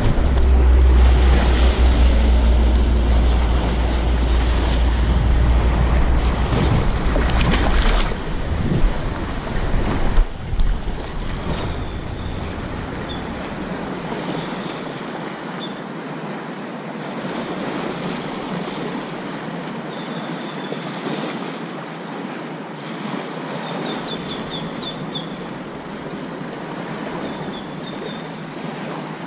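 Small waves washing onto a sandy beach, with wind rumbling on the microphone for about the first ten seconds before it drops away.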